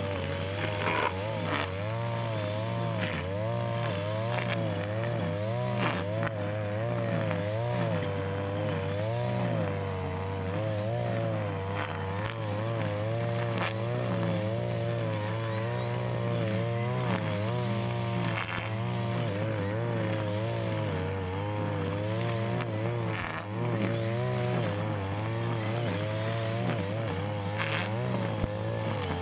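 A brush cutter's small engine running steadily, its pitch wavering up and down every second or so, with a few sharp ticks.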